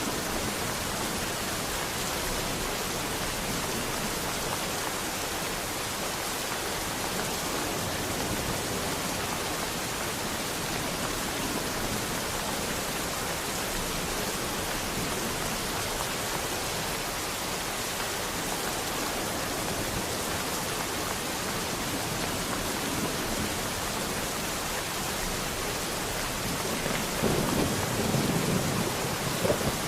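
Steady rain falling, with a low rumble of thunder building near the end.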